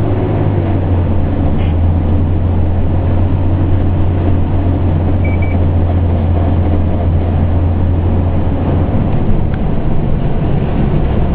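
Pierce Enforcer fire engine's diesel engine and drivetrain heard from inside the cab while under way: a loud, steady low drone with road noise.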